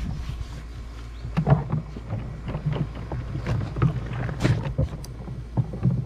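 Hands scrubbing a bass boat's livewell with a sponge in soapy water: irregular sloshing and rubbing strokes against the well's walls.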